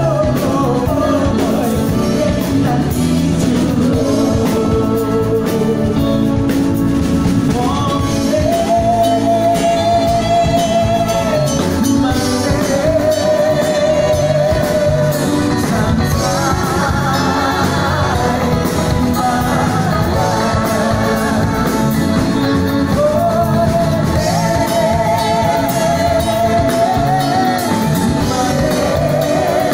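Live band playing a Minang pop song, with singing held in long notes with vibrato over band backing.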